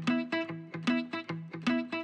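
Background music: a guitar picking single notes in a steady melody, about four notes a second.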